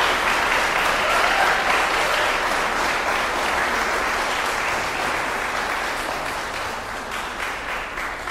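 Audience applauding, a dense even clapping that fades gradually over the last few seconds.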